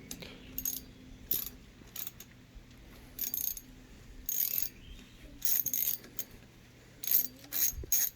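Hand socket ratchet clicking in several short bursts, loosening the clamp bolts of a dirt bike's handlebar brake lever.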